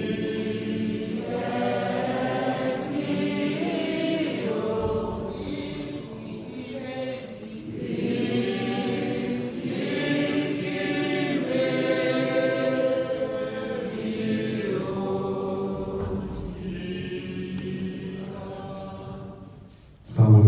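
A choir of mixed voices singing a slow hymn in long sustained phrases, the singing dying away near the end.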